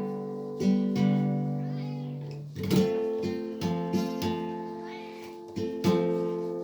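Acoustic guitar played flamenco style: sharply strummed chords struck every half second to second and a half, each left ringing and fading before the next.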